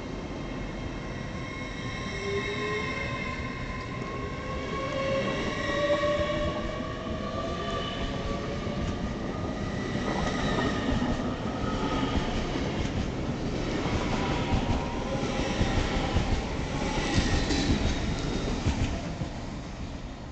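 LNER Class 801 Azuma train pulling away: its traction whine climbs steadily in pitch over several seconds, several tones rising together. As it gathers speed, a rumble and a quick run of wheel clicks over the rail joints follow.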